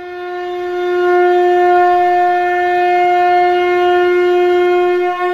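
Conch shell (shankha) blown in one long steady note, swelling in over the first second and then held at one pitch.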